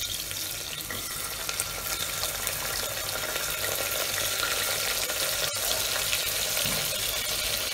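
Chopped onions frying in hot mustard oil in a pressure cooker, a steady sizzle just after they go in. One brief click about five and a half seconds in.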